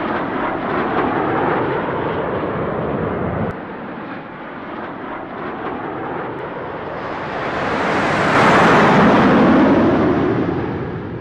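Airplane engine noise, dropping back a few seconds in, then swelling into a loud flyby about eight seconds in and fading away.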